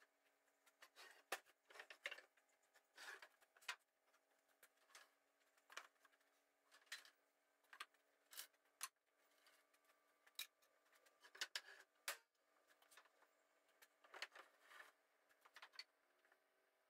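Faint, irregular clicks and knocks of wooden boards being lifted, set down and stacked, over a faint steady hum.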